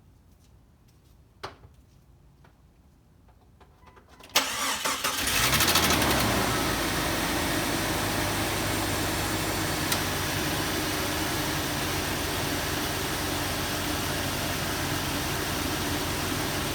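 2001 Jeep Cherokee XJ engine cold-started: a click, then about four seconds in the starter cranks briefly and the engine catches and settles into a steady idle. It knocks maybe once right as it starts, and the knock goes away at once. The owner took that cold-start knock for a lifter, and the engine has now been treated with Engine Restore.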